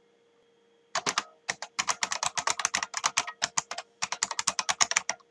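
Computer keyboard typing: a quick, uneven run of keystrokes starting about a second in, several per second.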